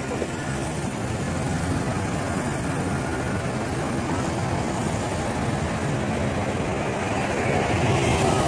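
City road traffic: steady engine and tyre noise from passing cars and motorcycles, growing louder near the end as a double-decker bus drives past close by with a slowly falling whine.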